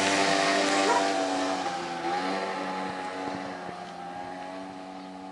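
Small moped scooter engine running as it pulls away up a slope, fading steadily into the distance.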